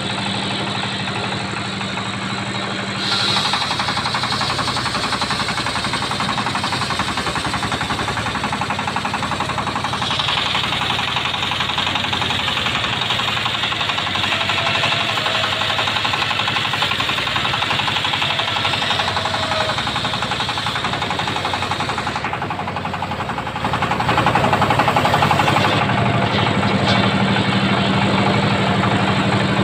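Engine-driven mobile sawmill circular saw ripping a thick mahogany block into boards. The engine runs steadily, and about three seconds in the blade bites into the wood with a loud rasping cut. The cut eases briefly a little before the end, then comes back louder.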